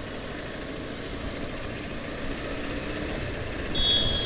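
Steady rumble of riding a motorcycle through city traffic. A vehicle horn starts sounding near the end.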